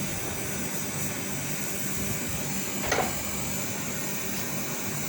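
Steady machine hum over a constant hiss, with a single short knock about three seconds in.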